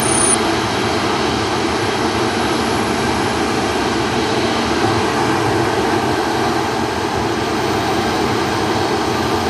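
Jet airliner engines running with a steady, loud noise, with no clear rise or fall.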